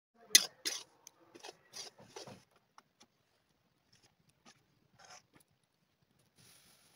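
A steel ladle scraping and scooping through dry flour in a steel kadai: a quick run of sharp scrapes over the first two seconds or so, then only a few faint clicks.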